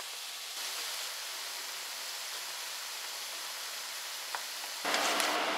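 Chopped onions sizzling gently in oil in a non-stick frying pan over a turned-down flame, a steady soft hiss as they simmer and soften. About five seconds in, a louder, lower background sound joins in.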